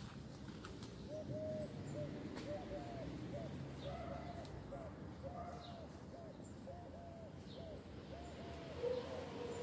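An animal's short calls repeated about twice a second, each rising and falling in pitch, starting about a second in.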